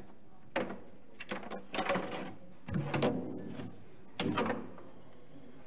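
A handful of irregular knocks and bangs, five or so, each with a short echo.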